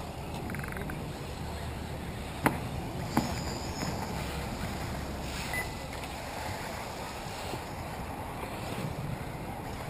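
Wind buffeting the microphone as a steady low rumble, with a sharp knock about two and a half seconds in.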